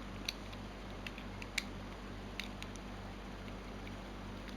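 A few light, sharp clicks of small tool parts being handled, such as a compression tool's interchangeable die being set in, over a steady low electrical hum.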